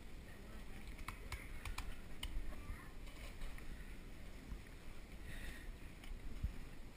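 Faint handling noises from filleting a sheepshead by hand: a low rumble with a few small clicks a second or two in.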